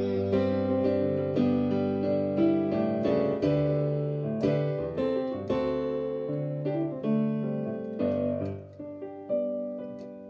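Digital piano playing the slow closing chords of a hymn, with no voice, the last notes dying away near the end.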